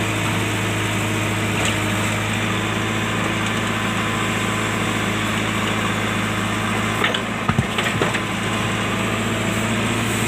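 JCB backhoe loader's diesel engine running steadily, with a few short sharp knocks about seven to eight seconds in.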